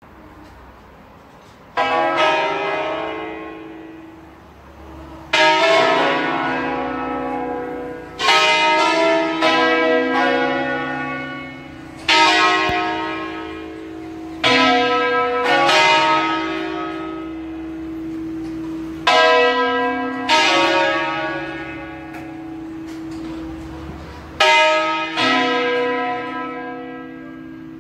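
A full-circle-swung peal of five church bells tuned in B, ringing a solemn concerto that calls the faithful to Mass. The first stroke comes about two seconds in, then about a dozen strokes at uneven intervals, each note ringing on and overlapping the next over a steady hum.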